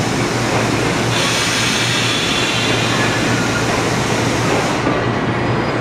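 JNR-type 115 series electric multiple unit standing at the platform just before departure, with a steady low electrical hum under general noise. A higher hiss comes in about a second in and fades away near the end.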